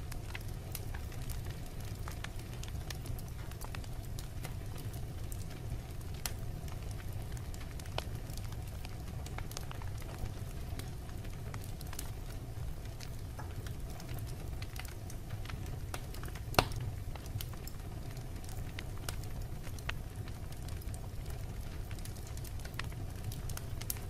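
Wood logs burning in a fireplace: a steady low rumble of the flames with scattered crackles and snaps, and one sharp, loud pop about two-thirds of the way through.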